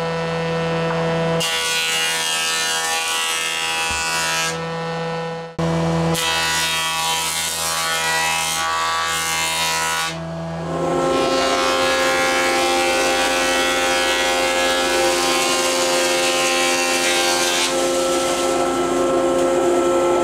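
Stationary woodworking machines running: a steady motor hum, broken by long stretches of noisy cutting as boards are sawn and fed through. The sound switches abruptly several times.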